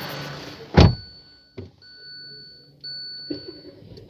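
A heavy thump about a second in, then a steady high-pitched electronic warning tone from the car, breaking off and starting again a few times, with a couple of lighter knocks and a faint low hum underneath.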